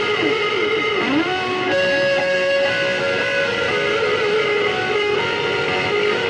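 Solo electric guitar played through an amplifier: a slow melody of long sustained notes, with a few downward pitch bends about a second in.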